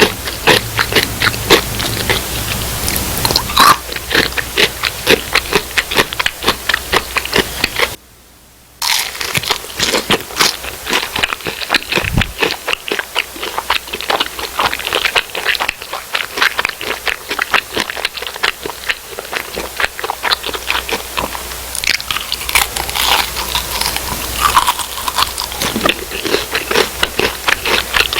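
Close-up crunching and chewing of crispy fried food, with many rapid sharp crunches throughout. The sound drops out briefly about eight seconds in.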